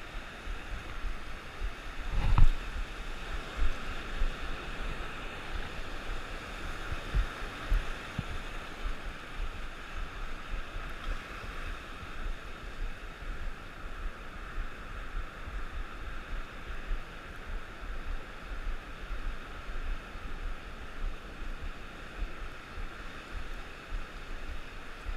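Steady wash of rough sea surf, with irregular low thumps, the loudest a little over two seconds in.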